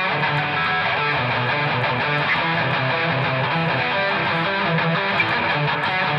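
Electric guitar with a distorted, chuggy metal tone played through a bare speaker out of its cabinet: a riff of short repeated low notes with chords above.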